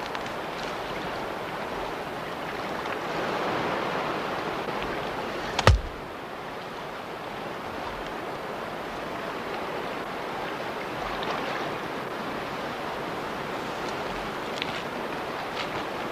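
River water rushing steadily, with one sharp knock partway through that is the loudest sound.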